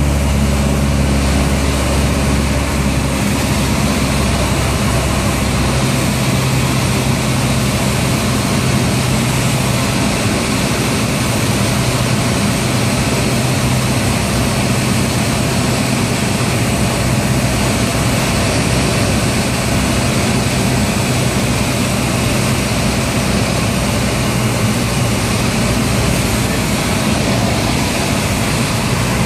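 Light single-engine propeller airplane's engine and propeller running steadily, heard from inside the cockpit on the approach to landing. The low drone shifts in pitch about three seconds in, then holds steady.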